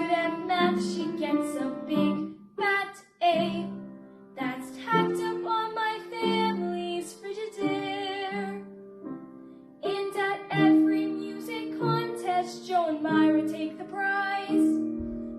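A woman singing a musical-theatre song with piano accompaniment.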